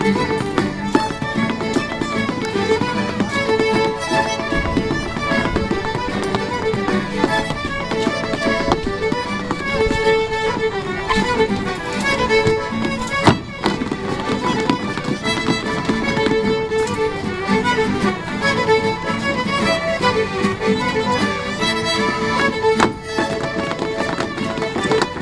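Fiddle playing a traditional dance tune, with a single sharp clack about halfway through.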